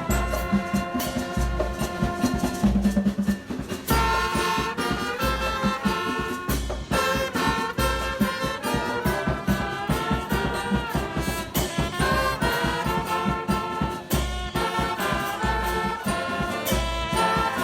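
Background music with a steady beat and melody.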